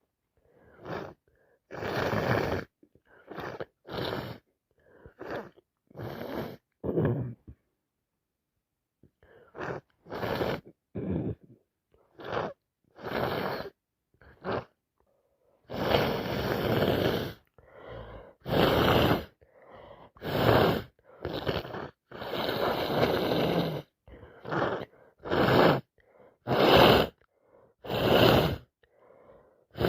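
A woman with a heavy wet head cold making a long run of nasal and breathing noises, about twenty in thirty seconds, mostly short with a few lasting a second or two, and a brief pause about a quarter of the way through.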